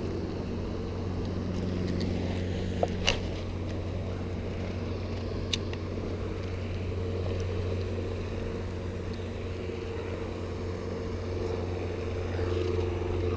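A steady low motor hum made of several even tones, with a few faint clicks.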